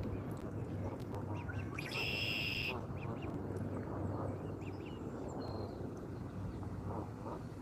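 Waterfowl calling in short calls over a steady low hum, with one loud, held high-pitched tone about two seconds in.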